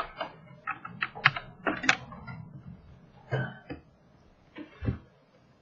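About ten irregular clicks from a computer mouse and keyboard being worked, bunched in the first two seconds, then a few more spaced out.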